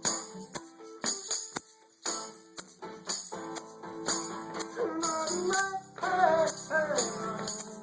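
A band playing a song: tambourine shaken on a steady beat over held guitar notes. A voice comes in singing about five seconds in.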